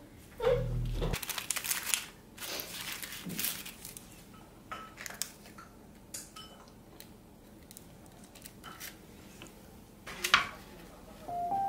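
Paper cupcake liners crinkling and rustling as small cakes are set into them, followed by scattered light clicks and taps of a wooden spoon and tableware, with one sharper knock about ten seconds in.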